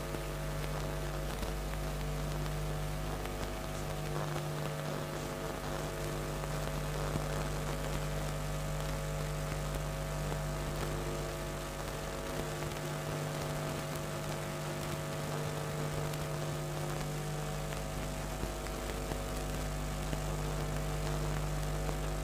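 Steady electrical mains hum with hiss from a public-address sound system left open between scenes. It holds several fixed pitches, a few of which drop out for a few seconds and come back.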